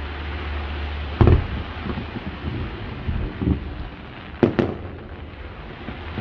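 Fireworks display: aerial shells bursting with sharp bangs, the loudest about a second in and a close pair near the end, with smaller thumps in between over a steady background hiss.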